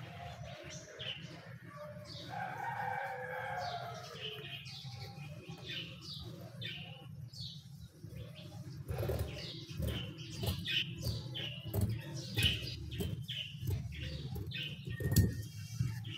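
Small birds chirping in the background over a steady low hum. From about halfway through, scissors cut through fabric and the cloth rustles as it is handled, with the loudest stroke near the end.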